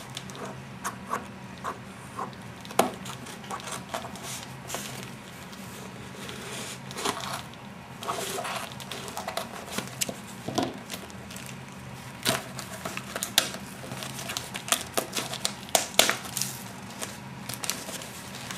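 A mailed parcel being opened by hand: packaging crinkling and tearing, with many irregular sharp clicks and knocks, busiest in the second half. A faint steady low hum runs underneath.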